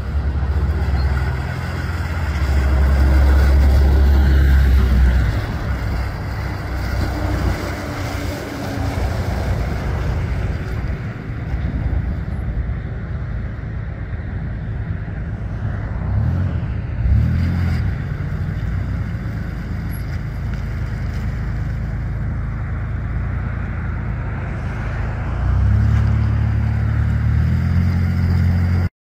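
1998 Ford Ranger 4x4 pickup's engine running as the truck drives, louder a few seconds in and again near the end, with a brief rise and fall in engine pitch about halfway through. The sound cuts off suddenly at the end.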